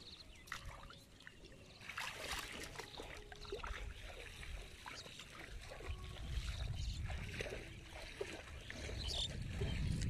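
Shallow water splashing and trickling as the wet tail end of a ring net is lifted and handled in the water, with small irregular splashes and drips throughout.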